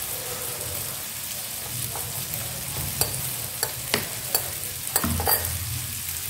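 Metal spoon stirring soy sauce and water in a small ceramic bowl, with a run of sharp clinks against the bowl in the second half. Underneath is a steady sizzle of tofu frying in oil.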